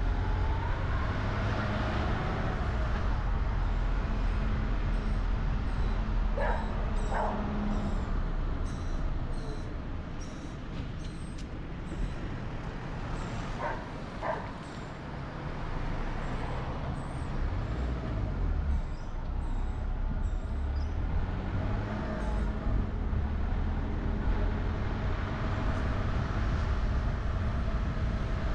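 Steady low road and engine rumble of a car driving, with a hum that fades out about a third of the way in and comes back near the end. Two pairs of short, sharp pitched sounds break through, about a quarter and halfway through.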